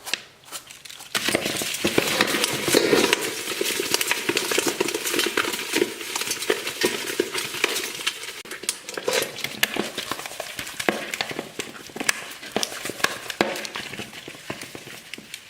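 Live loaches salted in a basin, wriggling and rattling against it, or being worked in the salt: a dense, irregular patter of wet clicks and taps, busiest a couple of seconds in and easing a little near the end.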